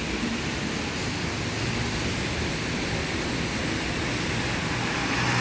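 Steady rain falling, an even hiss, with a faint low hum underneath that grows a little near the end.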